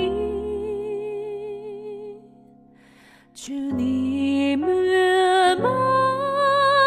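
Church choir singing a slow hymn. A held note with vibrato fades out about two seconds in, there is a short pause, then the next phrase begins and climbs in pitch.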